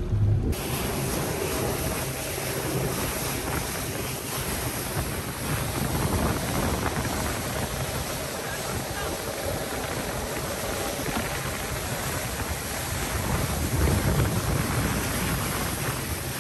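Wind blowing on the microphone and rushing water on a moving boat, starting suddenly about half a second in, with the boat's engine faintly underneath.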